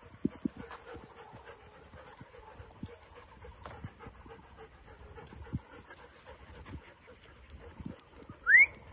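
Soft steps and scuffs on a wet paved path, then near the end a short, loud rising whistle from a person whistling for the dogs.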